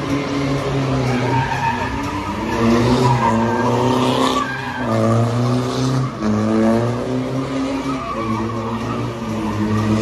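Car engine revving hard, its pitch climbing and falling several times, with a short break about four and a half seconds in.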